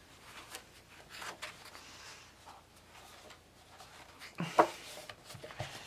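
Paper pages of a coloring book being turned by hand: soft rustling, with a sharper, louder page flip about four and a half seconds in.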